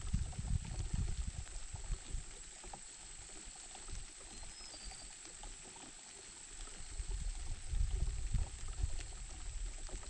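Outdoor ambience at a nest: gusty low rumbling of wind on the microphone, strongest at the start and again from about 7 to 9 seconds, over a steady high-pitched hiss, with a faint bird chirp about halfway through.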